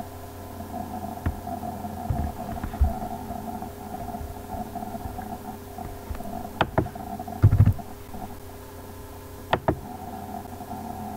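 Steady electrical hum of background noise, broken by a few sharp computer-mouse clicks in quick pairs, about six and a half and nine and a half seconds in, and a dull low thump around seven and a half seconds.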